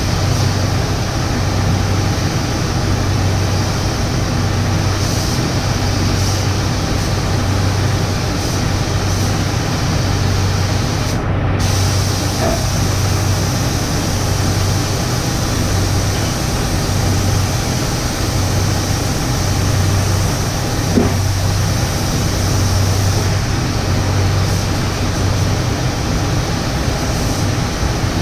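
Paint spray gun hissing steadily as paint is sprayed, over a constant low machine hum. The hiss stops briefly once, about eleven seconds in, while the hum runs on.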